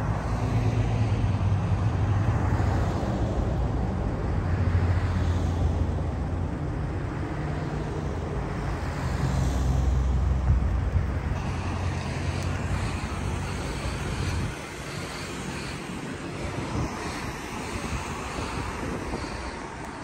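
Car engine idling close by with a steady low hum and some wind on the microphone. The hum drops away about two-thirds of the way through, leaving quieter road noise.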